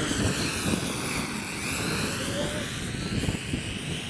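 Syma X8W quadcopter's motors and propellers whining, their pitch dipping and rising as they speed up and slow down to fight the wind. Wind rumbles on the microphone underneath.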